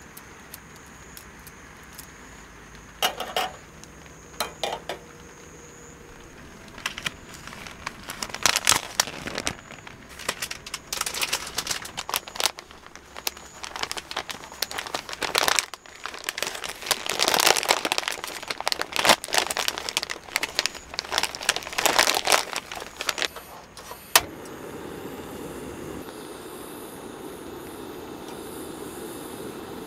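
Paper packaging crinkling and tearing in irregular bursts as it is opened by hand. After a sharp click, a portable butane cassette stove's burner hisses steadily.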